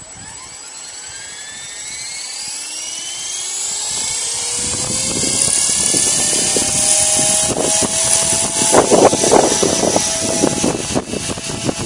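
Blade 300X electric RC helicopter spooling up: the motor and rotor whine rises steadily in pitch and loudness, then settles at flying speed. Strong wind buffets the microphone from about halfway, loudest in gusts near the end.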